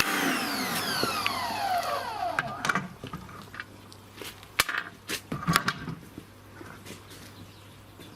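Sunpow BCN-H electric pressure washer winding down, its motor whine falling steadily in pitch over about two and a half seconds as the spray stops. A few sharp knocks and clatters follow.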